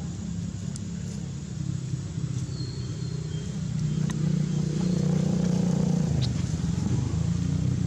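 Low, steady rumble of a motor vehicle engine running, growing louder about four seconds in.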